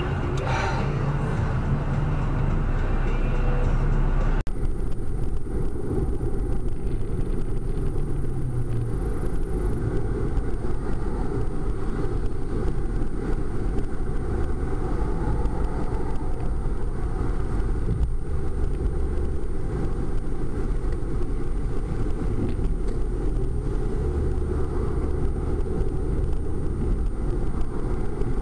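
Brief street traffic noise, then an abrupt cut about four seconds in to steady engine and tyre noise heard inside a car cruising on a highway, a low even rumble with a faint high electronic whine.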